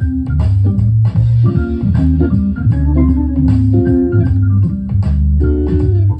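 Hammond organ soul-jazz playing from a vinyl LP on a turntable, heard through a speaker, with a heavy bass line under sustained organ chords.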